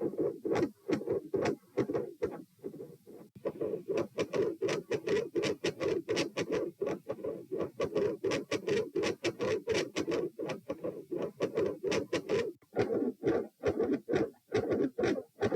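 Heart sounds picked up through a stethoscope on the chest: a quick, regular run of beats, thudding low in pitch.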